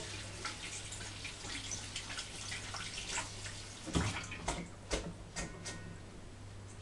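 Lemon balm being rinsed by hand in a kitchen sink: water splashing and dripping. Two sharp knocks come about four and five seconds in.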